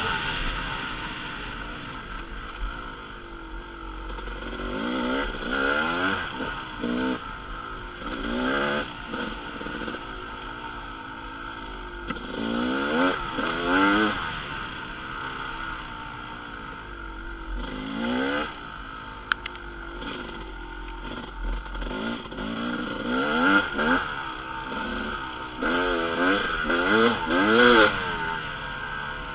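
Dirt bike engine revving up and down again and again as it is ridden along a dirt trail, its pitch climbing with each throttle opening and dropping off between. There is one sharp click about two-thirds of the way through.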